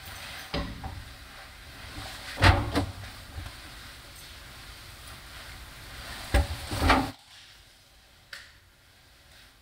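Clothes dropping into the drum of a front-loading laundry machine: a few dull thumps, the loudest about two and a half seconds in and another pair near seven seconds, over a low hum that drops away suddenly just after that.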